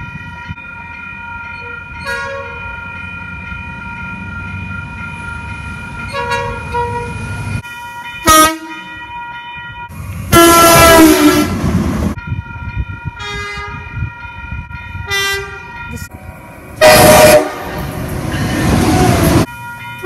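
OSCAR H-set electric train horn sounding repeatedly. Several short toots are followed by two long, loud blasts, one about ten seconds in and one about seventeen seconds in.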